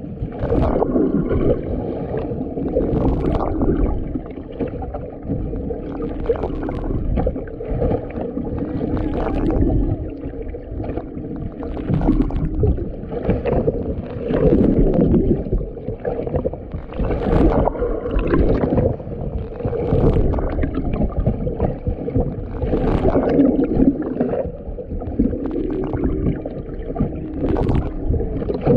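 Underwater sound picked up through a camera housing: water rushing and sloshing against the housing in uneven surges, with humpback whale calls rising and falling beneath it.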